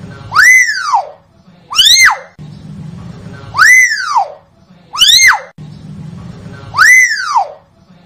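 Hill myna (beo) giving loud, shrill whistled calls, each rising and then falling in pitch. Five calls come in a steady series, about one every one and a half seconds, alternating shorter and longer ones.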